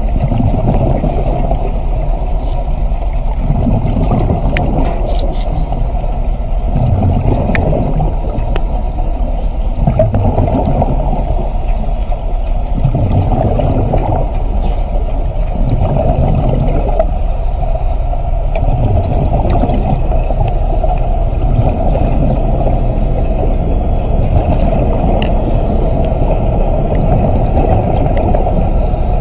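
Continuous loud underwater rumbling and bubbling, surging unevenly, with faint hissy puffs every two to three seconds.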